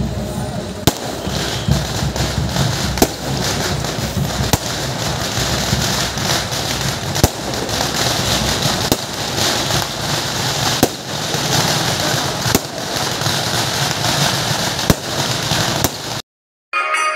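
Fireworks going off: sharp bangs every one to three seconds over a continuous noisy din, cutting off abruptly near the end.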